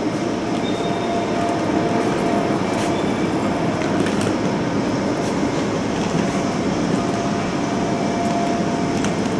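Steady din of a railway station train shed with passenger trains standing at the platforms: a constant low hum with a faint steady whine, and a few light clicks and knocks.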